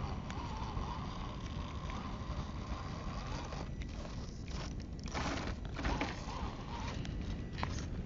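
Electric motor and gearbox of an SCX10 RC rock crawler whining faintly as it crawls over rock, the whine stopping after about three and a half seconds. Tyres scrape and crunch on rock and grit, most in the second half, over a steady wind rumble on the microphone.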